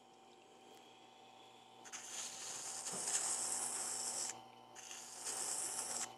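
A small metal extruder gear part ground against the turning stone of a water-cooled wet grinder: a rasping hiss starting about two seconds in, breaking off about four seconds in and starting again shortly after, over the grinder's faint steady motor hum. The part's protruding end is being ground down flush.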